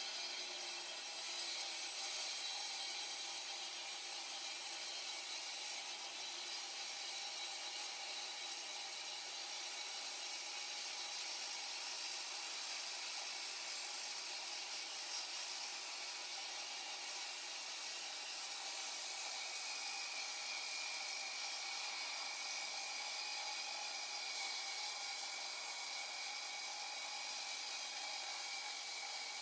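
Evolution R300DCT 12-inch electric concrete saw cutting concrete: a steady, unbroken grinding hiss that holds even without pauses.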